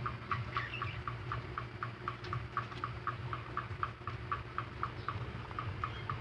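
Young rabbits chewing crunchy fresh vegetables: a quick, even crunching, about five chews a second.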